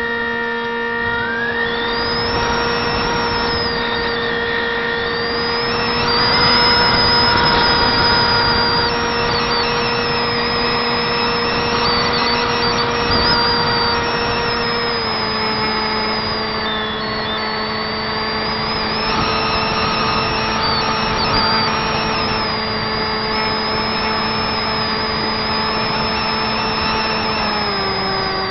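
Turnigy 28-26 2200kv brushless motor spinning a 6x4 propeller on a Zeta Wing Wing Z-84 flying wing, heard from a camera on the airframe: a steady propeller drone with a high electric whine and air rush. Its pitch drops a little about halfway through and again near the end.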